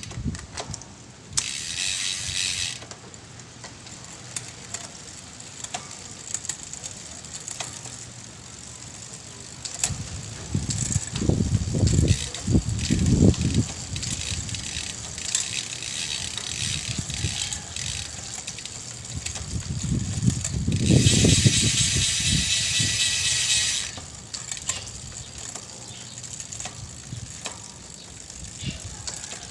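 Bicycle rear freewheel hub ticking as the wheel turns without pedalling, in two spells of fast even clicks, with low rumbling thumps in between.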